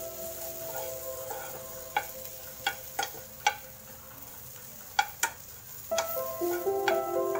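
A metal spoon stirring stuffed okra in a nonstick frying pan: sharp clinks against the pan over a faint sizzle of frying. Soft background music fades out about a second in and returns near the end.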